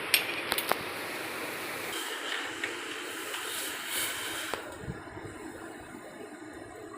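Steady hiss from a pan of kadha boiling on the stove, with a few sharp clicks near the start. The hiss stops suddenly about four and a half seconds in, leaving a fainter sound.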